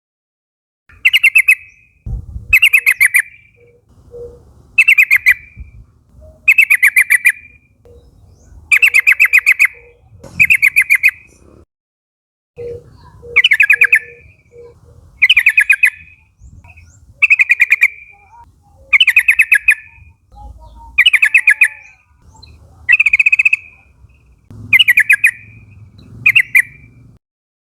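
Yellow-vented bulbul (trucukan) singing: short, rapid chattering phrases repeated about every one and a half to two seconds, with brief gaps between them.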